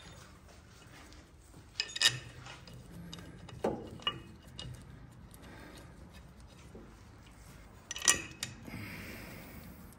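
Small metal parts clinking and scraping as bolts are fitted by hand into a steel mounting bracket, with a few sharp clicks about two, four and eight seconds in.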